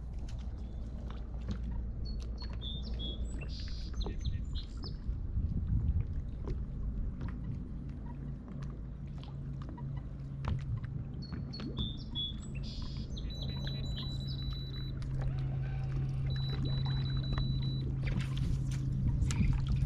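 Small knocks and rubbing of gear on a fishing kayak, over a steady low hum. Birds chirp briefly twice, a few seconds in and again around the middle.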